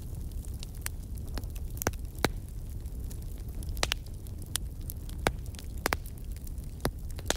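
Fire crackling: irregular sharp pops and snaps over a steady low noise.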